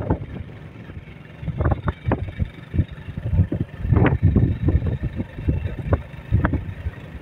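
Road vehicle on the move, with uneven low rumbling gusts of wind buffeting the microphone.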